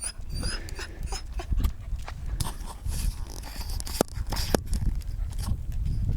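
Footsteps and rustling on a rocky forest trail: irregular scuffs and clicks over a low rumble of wind and handling on the microphone, with a short rising bird chirp right at the start.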